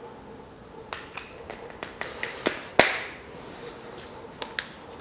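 A series of sharp plastic clicks and taps from handling the power steering reservoir cap and its loose dipstick. The loudest click comes about three seconds in, followed by a short rustle of a rag.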